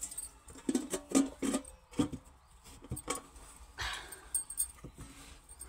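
Metal utensils clinking and knocking against a brass pot, then a short sizzling hiss about four seconds in as the hot tadka goes into the buttermilk.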